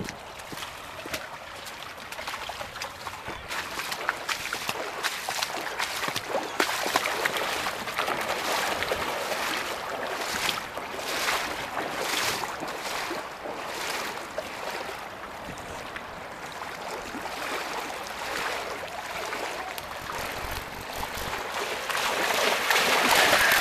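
Floodwater rushing and splashing: a steady noisy rush with many irregular splashes, growing louder near the end.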